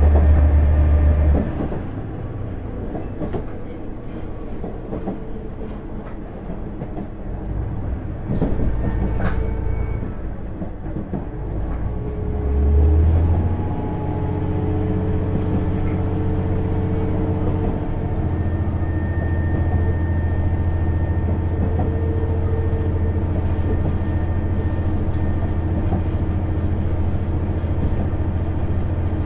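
KiHa 110 diesel railcar's engine working hard as it climbs the steep grade toward Kuzakai Pass. Its low drone eases back about a second and a half in, returns strongly at about 13 seconds and then holds steady, with a few rail-joint clicks near the middle.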